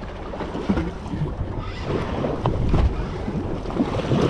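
Wind buffeting the microphone, with water splashing and sloshing as a hooked yellowtail kingfish thrashes at the surface beside the boat.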